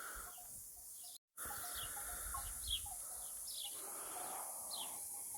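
Small birds chirping: short, repeated downward-sliding chirps, with a brief cut to total silence about a second in.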